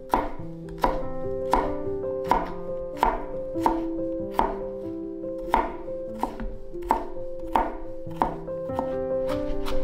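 Chef's knife chopping garlic cloves on a cutting board: sharp, even knocks of the blade on the board, about one and a half a second, over background music.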